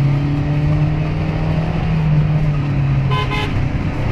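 Dacia Logan's 1.5 dCi four-cylinder turbodiesel running with a steady drone. A vehicle horn gives two short toots about three seconds in.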